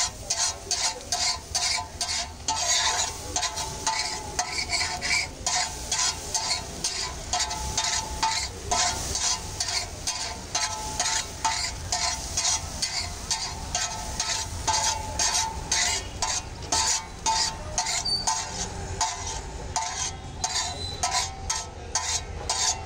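Metal spatula scraping and tapping egg bhurji across a large flat iron griddle (tawa) in quick repeated strokes, about two or three a second, each with a short metallic ring.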